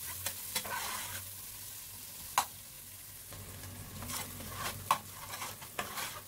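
Chopped onions and garlic sautéing in oil in a stainless steel pot, a soft steady sizzle, stirred with a long metal spoon that scrapes and clicks against the pot now and then. The onions are being cooked until tender and translucent.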